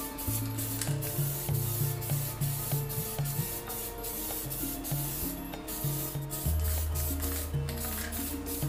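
Aerosol spray can hissing as clear coat is sprayed onto a motorcycle alloy wheel, in a string of passes with short breaks between them. Background music with a bass line plays throughout.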